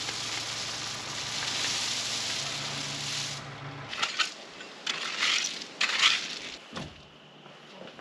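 Crushed rock pouring out of a tractor's front-loader bucket into a deep pit: a steady rushing rattle over the tractor engine's low running hum, ending about four seconds in. It is followed by a few separate clatters of stones falling.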